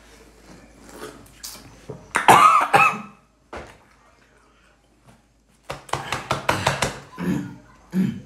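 People reacting aloud to the sourness of freshly bitten citrus wedges: a loud cry about two seconds in, then a quick run of coughs and sputters from about six seconds in, ending in short grunts.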